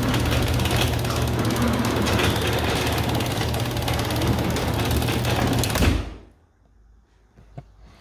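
All-O-Matic chain-drive garage door opener running the door along its rail: a steady motor buzz over mechanical drive noise, which stops suddenly about six seconds in, leaving a few faint clicks. The buzzing is judged to be just the opener's normal running sound.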